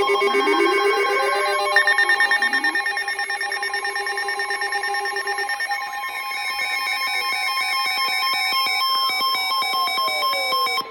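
Several electronic emergency alert tones sounding over one another: a steady high tone held throughout under other beeping, trilling tones at different pitches. There are short rising sweeps near the start and about two and a half seconds in, and a long falling sweep near the end.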